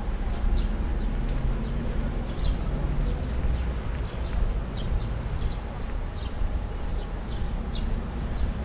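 Short, high chirps from small animals, several a second at irregular spacing, over a steady low rumble.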